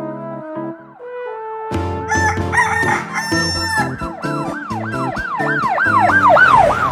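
Electronic sound effects from a bullhorn: a few stepped electronic tones, then a rooster-crow effect, then a siren sweeping up and down, speeding up and getting louder toward the end.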